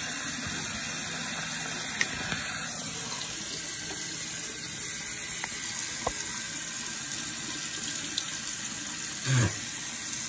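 Tap water running steadily into a bathroom sink, with a couple of light clicks and a short thump about nine seconds in.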